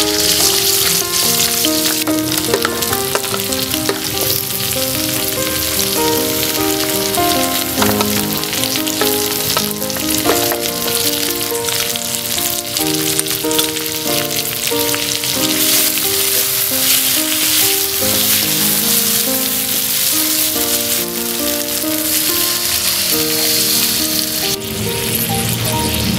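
Spice paste sizzling and frying in hot oil in a wok, stirred with a spatula, under background music with a stepped melody.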